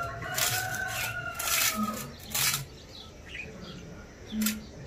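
German shepherd puppy eating wet rice and mutton gravy from a bowl: a run of repeated wet chomping and smacking sounds, some sharp and loud. A thin, slightly falling tone is held for about two seconds near the start.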